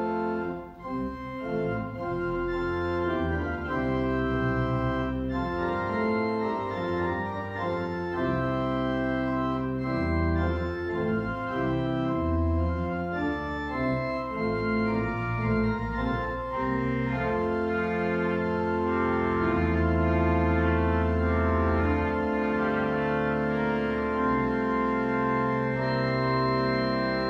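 Church organ playing a hymn tune: sustained chords that change every second or two over deep pedal bass notes.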